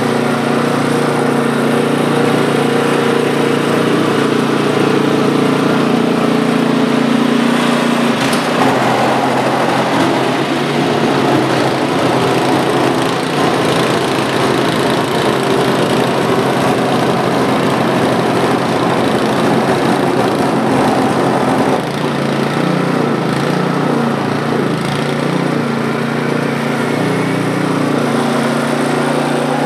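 Poulan Pro PP521ES single-stage snowblower's 136cc four-stroke engine running steadily under load while its auger throws snow, the engine note shifting a few times along the way.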